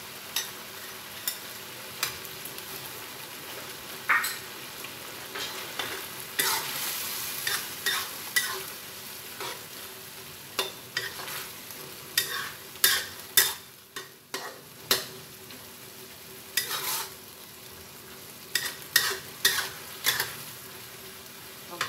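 Chili sambal with anchovies sizzling as it fries in a pan, while a metal spatula stirs it, scraping and knocking against the pan. The knocks come irregularly throughout and are loudest about halfway through and again near the end.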